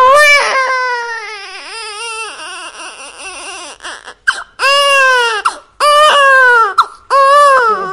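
Loud crying wails: one long wail that starts at once and falls slowly in pitch, then three shorter wails, each rising and falling.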